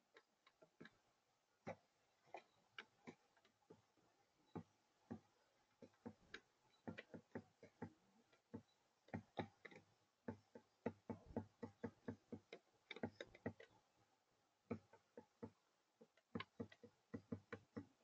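Mourning dove's beak pecking seed off a hard tabletop feeder: irregular sharp taps, sparse at first and coming in quick runs of several a second through the middle.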